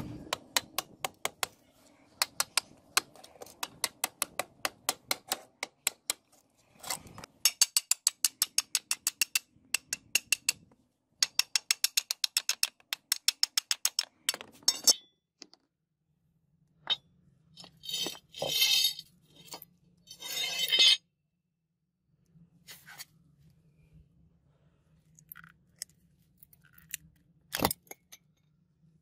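Hammer striking a steel chisel and the rusted metal fittings of a sword hilt, breaking away its rotted wooden grip: long runs of quick metallic taps, several a second and fastest in the middle run, for about fifteen seconds. After that come a few harsher scraping, rattling bursts and then scattered single knocks.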